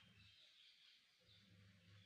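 Near silence: faint room tone with a low hum that comes and goes and a faint high hiss.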